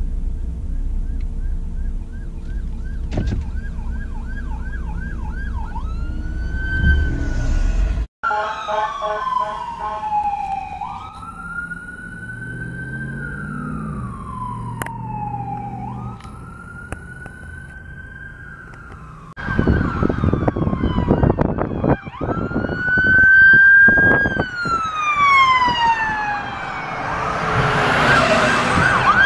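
Emergency vehicle sirens: a fast yelp for the first several seconds, then, after a cut, slow rising-and-falling wail sweeps. The wail sounds louder after a second cut, and a loud rush of a vehicle passing close builds near the end.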